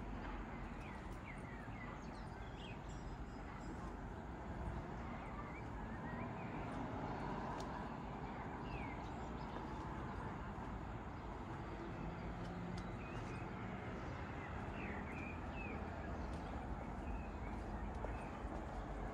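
Outdoor ambience: small birds chirping in short, scattered calls over a steady low background hum.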